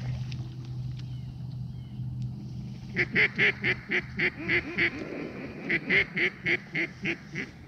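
Mallard-hen quacking in two quick runs of about eight quacks each, some four a second, starting about three seconds in.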